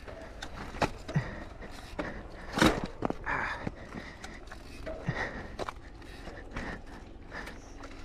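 Mountain bike rolling slowly over bare rock: tyre crunch and scrape with scattered clicks, knocks and rattles from the bike, and one louder knock near the three-second mark.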